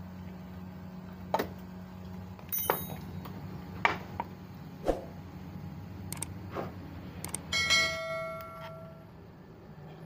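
Metal clinks and knocks as a motorcycle magneto cover is fitted back onto the engine case and worked with hand tools. One strike at about three-quarters of the way through leaves a short bell-like metallic ring. A steady low hum runs underneath.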